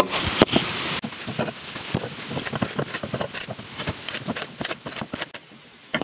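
Hand auger boring a hole in a wooden plank: irregular creaks and cracking clicks as the bit cuts into the wood, dying down near the end.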